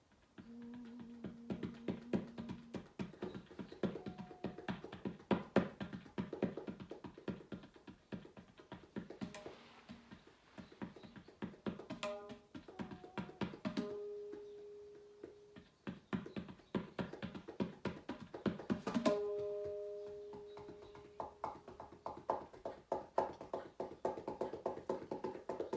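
Tabla played in a fast, dense stream of strokes, starting about half a second in, with a few held pitched notes ringing over the drumming.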